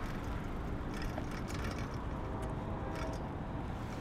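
Steady rumble of street traffic and a moving bicycle, with scattered light clicks and rattles from the bike. A faint siren tone creeps in near the end.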